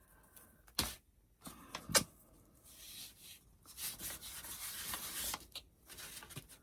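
Quiet handling of glued craft strips on a box: two light knocks about a second apart, then soft rubbing for a second and a half as the material is smoothed down.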